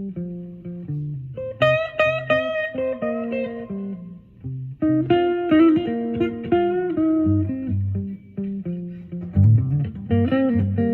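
Epiphone Sheraton semi-hollow electric guitar playing slow blues lead lines in G, with string bends, over a repeating low bass line.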